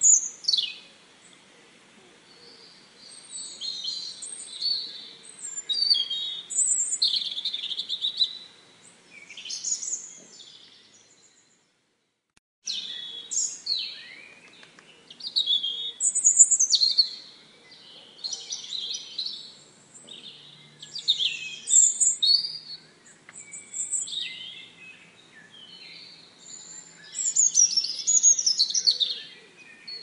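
Small songbirds singing and twittering in a run of short, high phrases one after another. The sound cuts out completely for about a second near the middle, then the song resumes.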